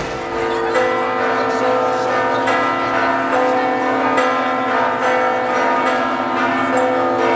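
Church bells pealing, many overlapping strokes ringing together without a break.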